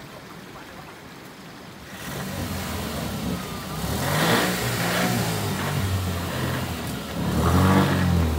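Off-road buggy's engine revving in surges as it drives through a shallow river, with water churning around its wheels. The engine comes in loud about two seconds in and revs up again near the end.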